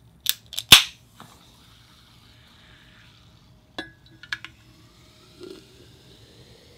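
An aluminium Coca-Cola can being cracked open: a few sharp clicks, with the loudest pop just under a second in, then a faint fizz. About four seconds in, the can clinks against the mouth of an insulated steel bottle. The cola is poured in over ice, fizzing, and the pitch of the filling rises as the bottle fills.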